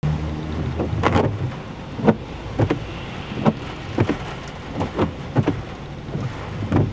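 Heavy rain falling steadily, with irregular dull knocks about every half second to a second. A low vehicle engine hum is heard briefly at the start.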